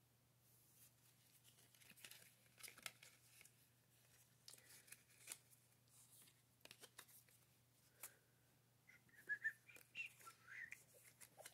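Near silence with faint rustles and light taps of paper trading cards being handled and squared into a stack. Near the end come a few faint, short, wavering high chirps.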